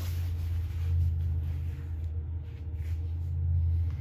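Steady low machine hum, with a few faint rustles from a rag being handled.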